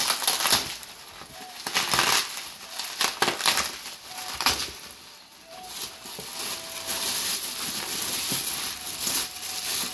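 Plastic bubble wrap crinkling and rustling as it is pulled and torn open by hand, first in several separate bursts, then as steadier rustling for the last few seconds.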